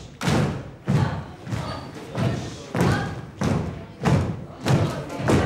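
A large group of dancers' feet stamping together on the studio floor in a steady marching beat, a little under two thuds a second.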